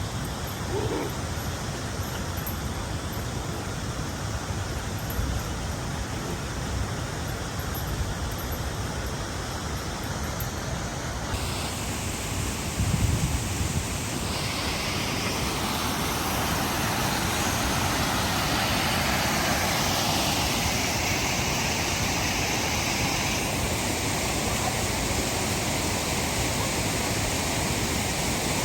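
Steady rush of waterfall water. It turns brighter about a third of the way in and a little louder after that.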